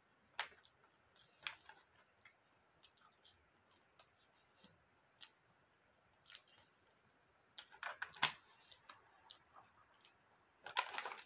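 Faint, scattered clicks and smacks of someone eating chicken close to the microphone, with brief louder flurries about eight seconds in and near the end.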